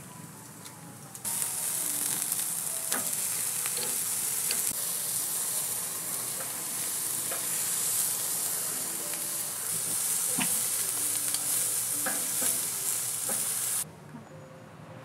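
Marinated beef ribs (galbi) sizzling on a hot grill: a loud, steady sizzle that starts suddenly about a second in and cuts off suddenly near the end, with a few light clicks over it.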